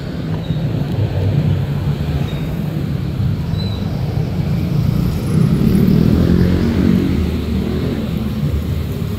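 City street traffic: car and motorcycle engines running and passing, growing louder about halfway through as a vehicle goes by.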